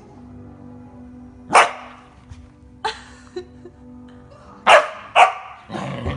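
Siberian husky sneezing in short, sharp bursts: one loud sneeze about a second and a half in, a smaller one near three seconds, then two loud sneezes in quick succession near five seconds.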